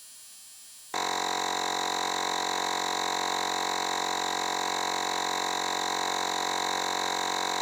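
A cordless portable air compressor running steadily with a constant multi-toned electric whine, getting much louder about a second in. It is pumping up a motorcycle tire toward its 36 PSI preset.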